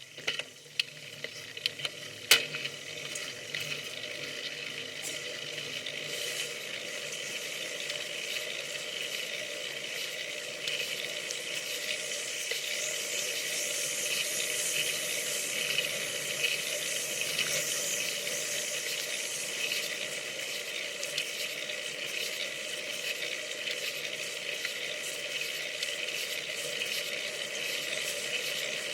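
Steady hiss of wind and road noise on a bicycle-mounted camera while riding, building over the first few seconds. A few sharp clicks come near the start, the loudest about two seconds in.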